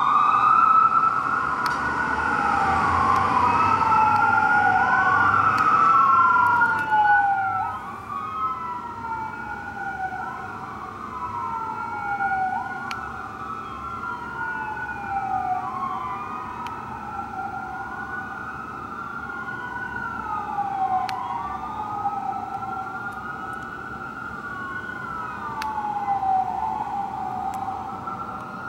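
Fire truck sirens wailing, two overlapping rise-and-fall wails out of step with each other. They are loud for about the first seven seconds, with a low rumble under them, then drop in level and keep wailing steadily.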